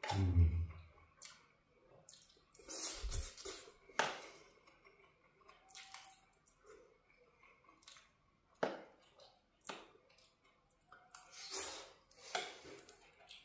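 Eating from a metal camping pot: a spoon clinking and scraping against the pot now and then, with soft wet chewing and mouthfuls in between. A low thud right at the start.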